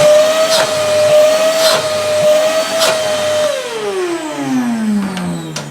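Construction vacuum cleaner's motor running with a steady high whine, then switched off about three and a half seconds in, its pitch falling as it winds down. A few sharp knocks sound while it runs.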